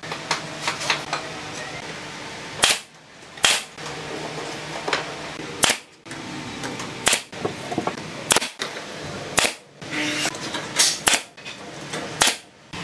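Pneumatic nail gun firing nails into wooden formwork battens: about ten sharp shots, irregularly spaced, over a low steady hum.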